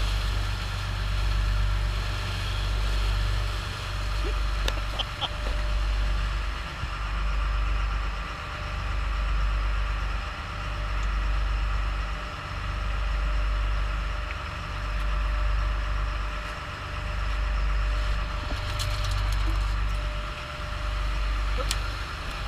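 Motorboat running under way: a steady engine hum over rushing wake water, with a deep rumble that swells and fades about every two seconds.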